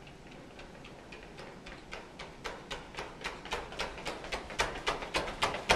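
Running footsteps of two sprinters on a hard tiled hallway floor: quick, even footfalls, about five a second, growing steadily louder as the runners approach.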